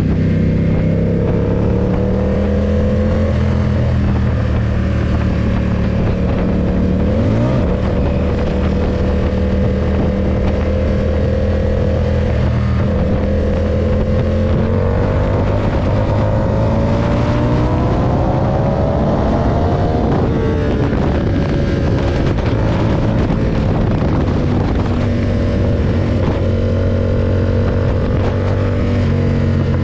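Ducati SuperSport 939's 937 cc L-twin engine running under way at a steady pitch, its pitch climbing for several seconds past the middle and then dropping back suddenly about two-thirds in. A short quick rise in pitch comes about a quarter of the way in.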